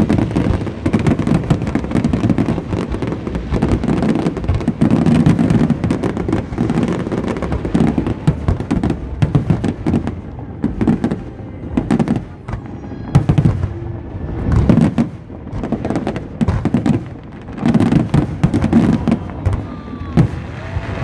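Aerial fireworks display: a rapid, irregular barrage of shell bursts, booming and crackling over a low rumble, with hardly a gap between the reports.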